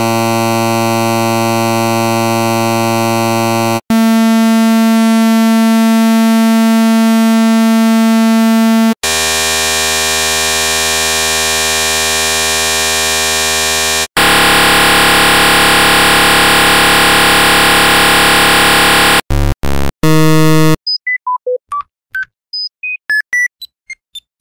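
Electronic beep sound effects: four long, buzzy beep tones of about five seconds each, each at a different pitch and tone colour, followed by three short beeps and then a quick run of short blips jumping between many different pitches near the end.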